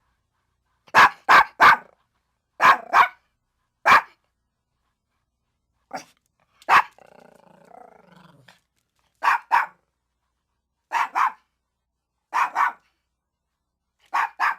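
Chihuahua barking: short, sharp barks in quick groups of two or three, about a dozen in all, with dead silence between the groups. A faint, low growl follows a single bark about seven seconds in.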